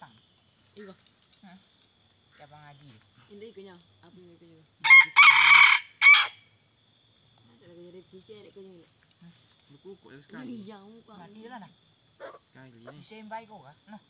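A rooster crows once, loud and close, about five seconds in, in a short crow of under two seconds. Under it runs a steady high buzz of insects.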